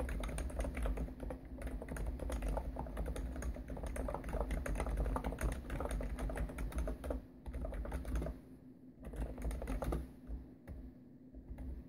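Hansung GTune CHL5 electrostatic capacitive (Topre-style) keyboard with 55 g switches and TH keycaps being typed on fast in a steady stream of keystrokes, thinning to slower, scattered strokes with short pauses over the last few seconds. A low ringing from the desk sits under the keystrokes.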